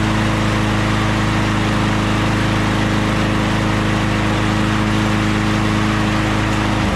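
Briggs & Stratton Quantum auto-choke single-cylinder push-mower engine running at a steady, even speed. It shuts off right at the end.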